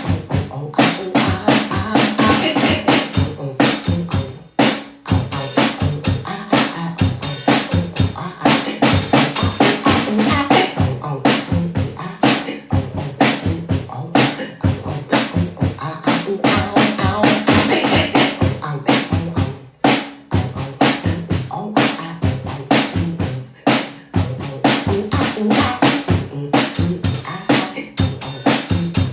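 Percussive beat of fast, closely spaced drum-like hits, with brief drop-outs about four and a half seconds in and again around twenty seconds in.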